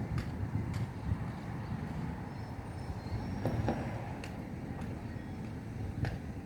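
Distant thunder: a low, steady rumble that swells a little midway, with a few sharp ticks scattered through it.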